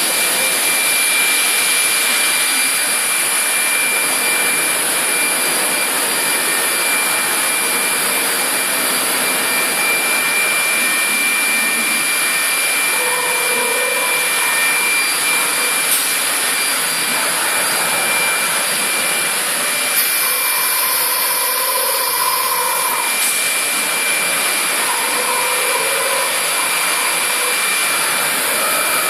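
Tekcel VSR CNC router running, a steady high-pitched whine over a constant loud hiss, with faint brief changes in tone now and then as it cuts.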